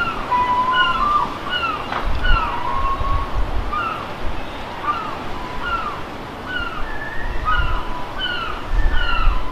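Birds calling over and over: short downward-slurring chirps, several a second and overlapping, with now and then a longer level note. Low gusts of wind rumble on the microphone underneath, swelling about two seconds in and again near the end.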